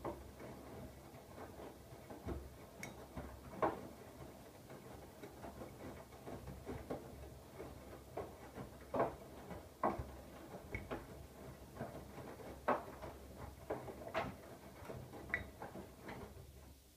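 Siemens iQ700 front-loading washing machine tumbling a load in its Rapid 20 wash programme: a low hum of the turning drum with irregular clicks and knocks from inside it, stopping near the end.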